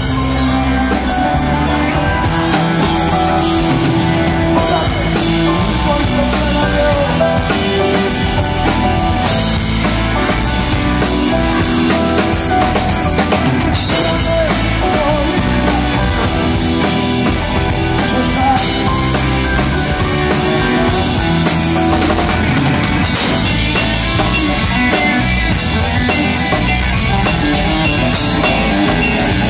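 A live band playing rock music, with acoustic guitar, electric guitar and bass over a steady drum-kit beat.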